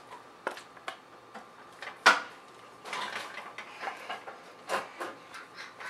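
Serving spoon knocking and scraping against a cooking pot and a ceramic bowl as beans are ladled out, a series of separate clicks and clunks with one louder clank about two seconds in.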